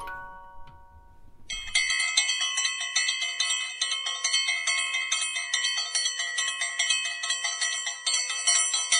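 Bright bell-like ringing, struck again and again in a rapid, even rhythm, that comes in about a second and a half in after a few fading musical notes.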